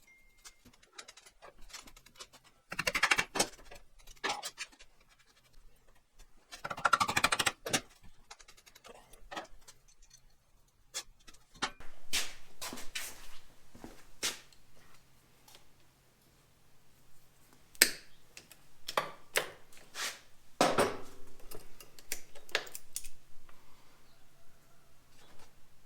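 Hand tools and metal parts being worked during motorcycle disassembly: irregular clicks, clinks and short scraping rasps, with two longer scrapes early on and runs of quick clicks later.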